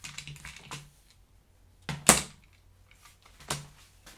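Hard objects being handled: a few light clicks, one sharp knock about two seconds in, and a softer knock near the end.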